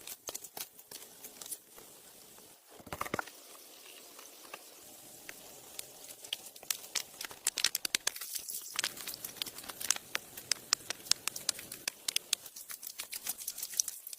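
Irregular crackling and clicking, sparse at first and growing dense and busy from about six seconds in, with a short louder rustle about three seconds in.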